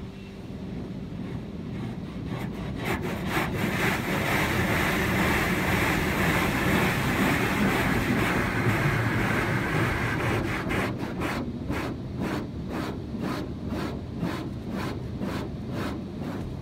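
Automatic car wash spraying water over the car, heard from inside the cabin: a rushing hiss that builds over the first few seconds, then turns into a rhythmic swish about three times a second.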